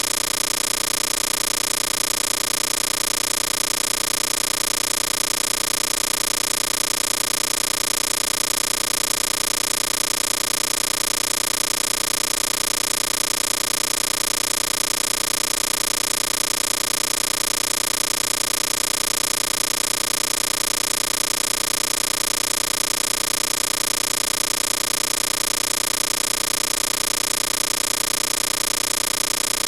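A steady, unchanging mechanical drone spread from low to very high pitches, with no breaks or changes in level.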